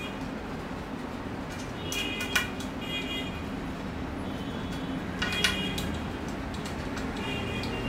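Steady street traffic noise with short horn toots coming and going every second or two, and two sharp clicks, about two and a half and five and a half seconds in, from the spoked wheel being worked on.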